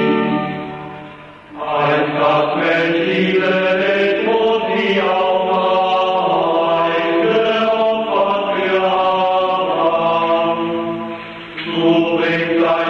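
Schola of seminarians singing a slow liturgical chant. The sound is dull, with no treble. A phrase dies away at the start, the next begins about a second and a half in, and there is a short break near the end before singing resumes.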